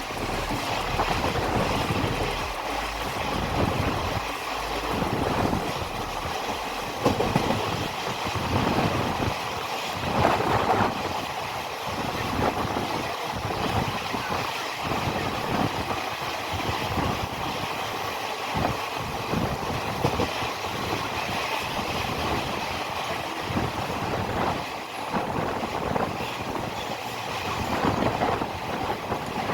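Passenger train running along the track: a continuous rumble with the wheels clattering irregularly over the rails.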